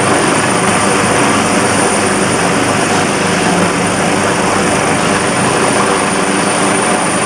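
Air-rescue helicopter hovering close by: a steady, loud rotor beat and turbine noise, with a thin high whine held over it.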